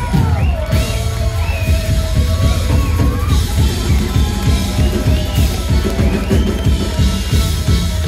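Live folk-bluegrass band playing: banjo, accordion, acoustic guitar and upright bass over a drum kit, with a steady, loud kick-drum beat and a wavering melody line above it.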